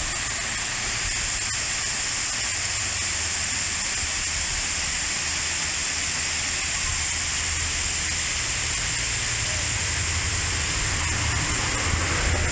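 Steady rushing of a mountain waterfall pouring down a rock face, with a low rumble growing near the end.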